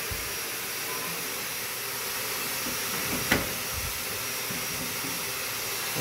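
Canister vacuum cleaner running steadily, a continuous rushing hiss. One sharp click about three seconds in, as the dryer's lint-screen cover is set back in place.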